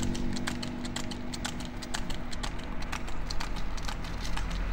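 Hooves of a water buffalo bull clip-clopping on asphalt at a steady walk, about three to four sharp clicks a second, as it pulls a wooden cart. A low rumble lies under the clicks.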